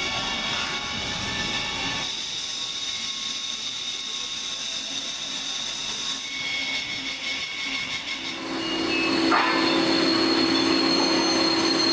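Industrial machinery running with a steady hiss and several held squealing tones; about two-thirds of the way through it gets louder, adding a steady hum.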